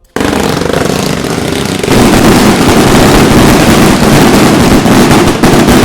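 Kingsmen 'Evolution' 108-shot 25 mm fireworks cake firing a dense, rapid barrage of shots that blur into one continuous crackling rumble, growing louder about two seconds in.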